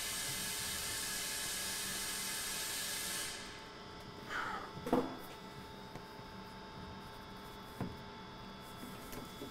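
A steady hiss that stops suddenly about three seconds in. Then a plier-type hose cutter closes through a rubber vent hose, giving a short falling squeak and a snap about five seconds in, with a light click near the end.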